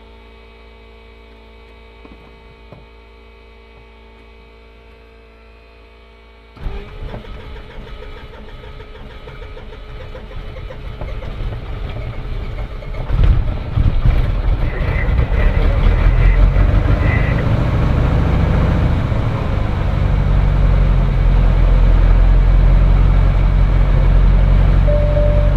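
Cirrus SR20's four-cylinder Lycoming IO-390 engine being started: a steady electrical hum at first, then about six and a half seconds in the starter engages and the engine turns over and builds, catching and running much louder from about 13 seconds, then settling into a steady idle. A short run of high beeps sounds around 15 seconds.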